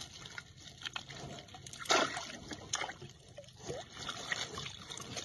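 Water splashing and dripping as a wet fine-mesh fishing net is hauled out of the water over the side of a wooden boat, with scattered small splashes and one louder splash about two seconds in.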